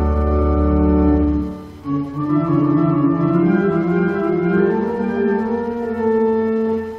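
Organ music: a held chord over a deep bass note ends about a second and a half in. After a short break, a new phrase of moving, sustained notes in several parts follows.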